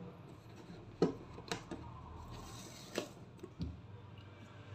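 Handling noise as a product box is opened: a few sharp clicks and taps over faint room noise.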